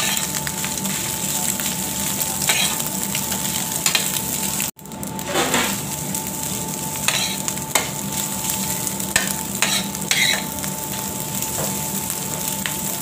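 Fried rice sizzling in oil in a stainless-steel frying pan while a metal spoon stirs it, with frequent scrapes and clinks of the spoon against the pan. The sound drops out for an instant a little under five seconds in.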